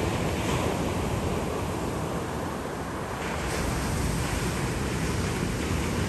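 Pacific Ocean surf breaking and washing up a sandy beach: a continuous rushing that eases a little midway and builds again.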